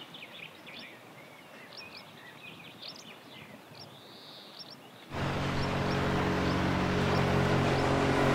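Small birds chirping over quiet outdoor air, then, about five seconds in, a motorboat's engine starts abruptly and runs at speed: a steady drone far louder than the birdsong.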